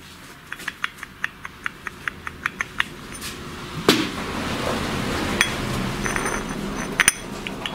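Metal hand tools working on an engine during assembly: a run of light, even metallic clicks, about five a second, then a single louder metallic knock about four seconds in, followed by a rustling stretch and two sharp clicks near the end.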